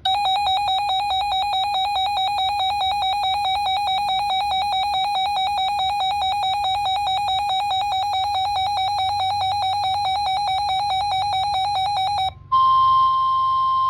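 A weather radio's built-in alert alarm beeping in a rapid, steady electronic pulse, which cuts off after about twelve seconds. Near the end the broadcast's single steady NOAA Weather Radio warning alert tone sounds, marking the start of a warning message.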